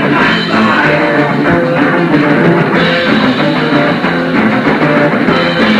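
Live rock band playing, with electric guitars to the fore over bass and drums, heard on a lo-fi 1970s cassette recording.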